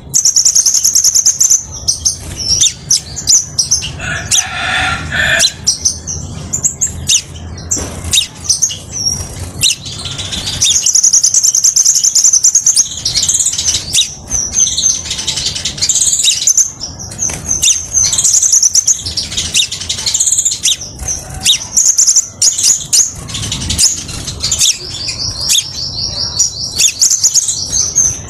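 Crimson sunbird singing: a long, near-continuous run of rapid, high-pitched chirps and trills with only brief pauses.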